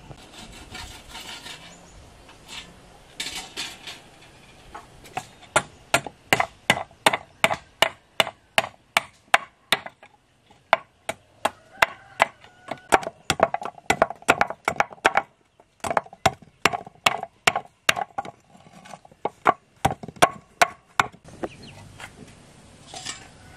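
Machete striking short sections of green bamboo on a stone slab: a long run of sharp, ringing knocks, about two to three a second, with a couple of short pauses. A few scraping strokes come before the knocks begin.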